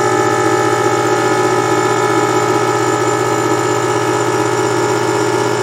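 Small Porter-Cable electric air compressor running steadily, its little pump humming as it pumps air into the tank.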